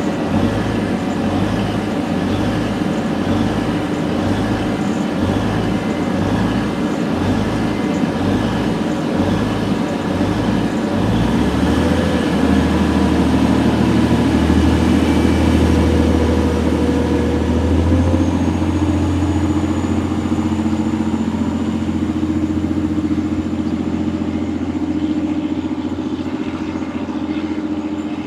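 Class 185 diesel multiple unit's Cummins QSK19 underfloor engines idling with a regular low throb. About eleven seconds in they open up as the train pulls away, growing louder and then easing off slightly as it draws away.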